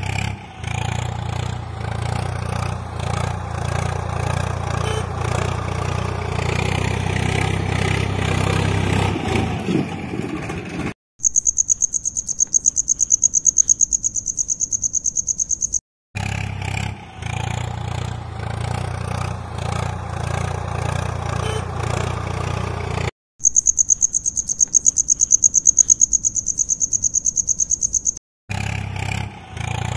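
A steady engine-like running sound, cut off abruptly twice, about eleven seconds in and again past the twenty-second mark, by roughly five-second stretches of fast, even, high-pitched insect-like chirping.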